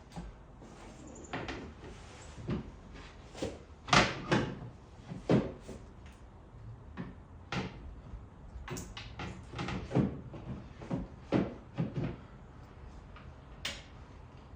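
Irregular knocks and clunks of metal parts and tools being handled while fitting a skid plate and its hardware under a UTV. There are about a dozen separate hits, a few of them sharp.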